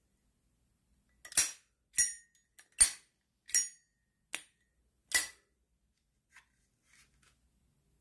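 Zippo Armor lighter's hinged brass lid being flipped open and snapped shut, six sharp metallic clicks with a bright ring, about two thirds of a second apart. A few faint ticks follow near the end.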